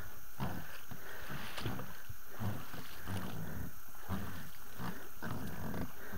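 A person breathing hard and heavily from effort, about two breaths a second, over water and boat noise from an inflatable boat being forced through a weedy bog channel.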